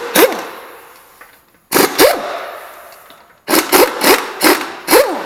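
Pneumatic impact wrench (air gun) with a 19 mm socket loosening wheel lug nuts in loud short bursts: one just at the start, another about two seconds in, and several quick trigger pulls near the end. Its whine rises and falls with each pull.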